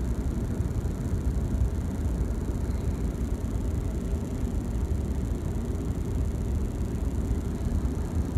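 Steady low rumble of a passenger train car rolling slowly along the track, heard from inside the car.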